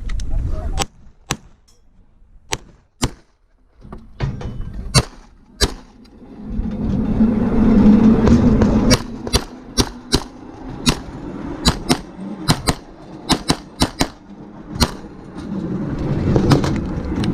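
A .40 S&W pistol firing a competition stage: about twenty shots at irregular spacing, many in quick pairs with pauses between strings.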